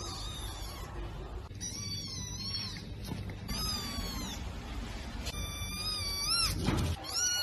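A kitten mewing repeatedly in high-pitched cries, one long wavering mew near the end, as the mother cat grabs it by the scruff and carries it.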